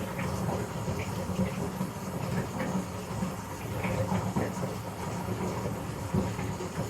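Water running steadily from a bath tap into the tub.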